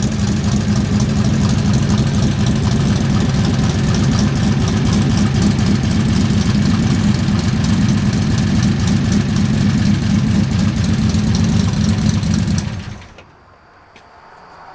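Tunnel-rammed 383 Mopar big-block V8 idling steadily and loudly, then shut off about 13 seconds in, the sound dying away within half a second.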